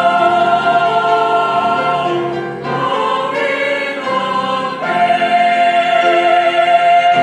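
Mixed church choir singing sustained chords on the closing 'amen, amen'. About two and a half seconds in the sound briefly eases, then the choir moves into a long held note.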